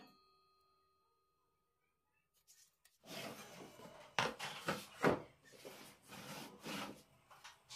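Near silence at first, then a plywood crosscut sled and wood pieces being slid and handled on a table-saw top: irregular rubbing and scraping with a few sharp knocks.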